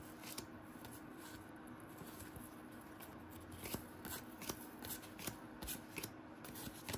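Basketball trading cards flipped through by hand: faint rustling and soft snaps of card stock, coming more often in the second half.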